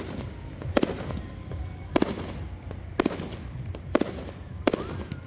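Aerial fireworks shells bursting in a display, about six sharp booms roughly a second apart, each followed by an echoing tail.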